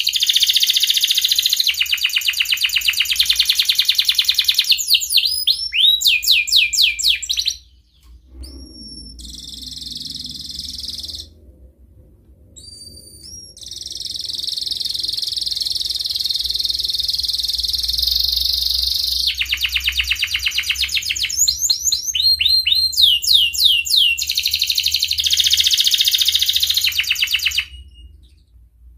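Domestic canary singing a loud, continuous song of rapid rolling trills and upward-sweeping notes, breaking off briefly a few times around the middle: the full rolling song of a male canary in breeding condition.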